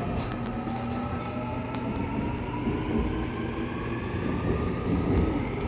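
Seoul Subway Line 2 electric train running, with a low rumble under a motor whine of several tones that rises steadily in pitch as the train gathers speed.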